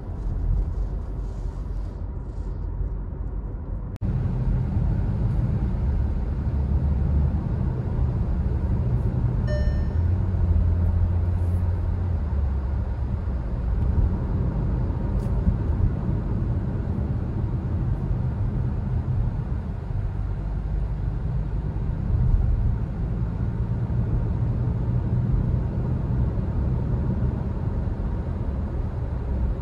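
Cabin noise of a Skoda Kodiaq SUV on the move: a steady low rumble of tyres, engine and wind, which gets louder about four seconds in as the car runs at highway speed.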